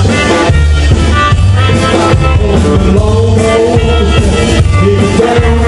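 Rockabilly band playing live: drum kit keeping a steady beat under electric and acoustic guitars.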